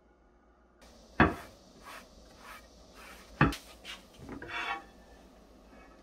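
Ceramic-coated grill plate being handled and set down on a stone countertop: two sharp knocks about two seconds apart, with lighter clicks and a short rustle of handling after them.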